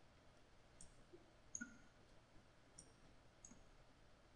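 Faint computer mouse clicks, about half a dozen scattered and irregular, with a quick double click about a second and a half in, over near-silent room tone.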